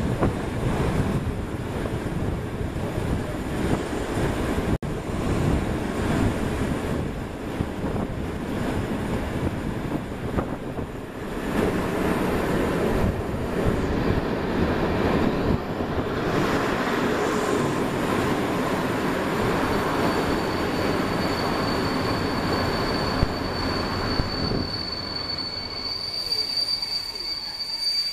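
MÁV passenger train rolling into a station, heard from an open carriage window: steady rumble and rattle of the wheels on the track with air rushing past. About two-thirds of the way through a high, steady brake squeal sets in and grows louder near the end as the train slows for its stop.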